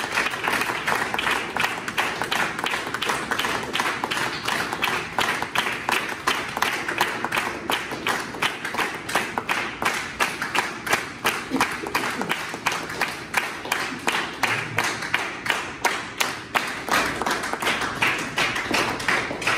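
Audience applauding in a hall. The clapping falls into a steady shared rhythm of about two to three claps a second in the second half.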